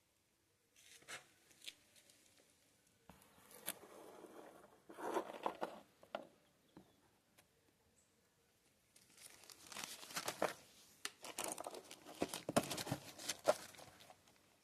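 Irregular rustling and crinkling handling noises in bursts, with a few sharper clicks; no engine running.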